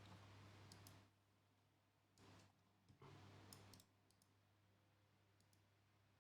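Near silence with a low steady hum and a few faint, sharp computer mouse clicks scattered through it.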